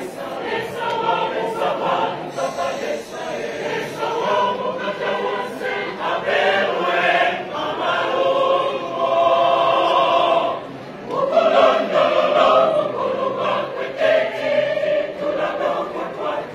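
A large mixed church choir singing gospel music in full harmony, with sustained chords; the voices break off briefly about two-thirds of the way through and come back in strongly.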